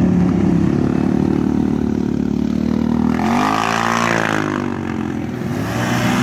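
Several ATV engines running as quad bikes ride past. About three seconds in, one passes close and its engine note rises and then falls.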